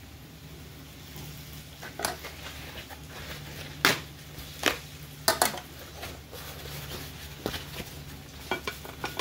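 Kitchenware clinking as serving dishes and utensils are handled: a series of sharp clinks and knocks, loudest about four and five seconds in. Under them run faint frying sizzle and a steady low hum.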